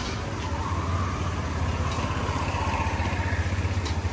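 A motor vehicle engine idling close by, a steady low rumble with a fast even pulse, over general street noise.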